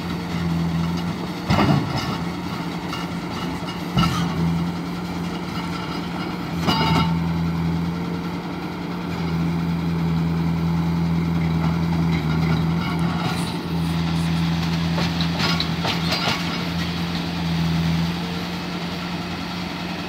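Bobcat S185 skid-steer loader's diesel engine running steadily under load as it works its raised bucket over a dump truck's bed. Several loud knocks come in the first seven seconds, with a cluster of sharper clicks later on.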